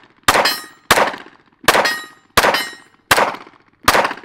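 Sig Sauer M18 9mm pistol firing six shots at a steady pace, about one every 0.7 seconds. A ringing tone hangs after several of the shots.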